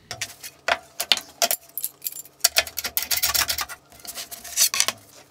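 Light knocks, scrapes and metallic clinks as 12 mm MDF panels are slid and set down on a workbench and metal clamps are handled, in a quick irregular run of short clicks.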